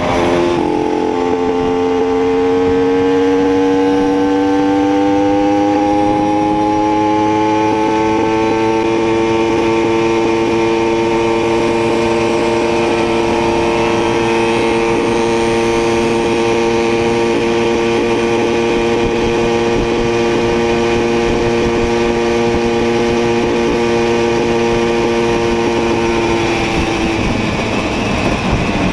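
Simson moped's two-stroke engine running hard under way. Its pitch dips briefly about half a second in, climbs over the next several seconds, holds steady for a long stretch, then falls near the end.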